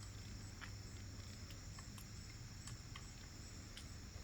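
Steady high chirring of crickets, with a handful of faint, irregular clicks and taps from parts being handled.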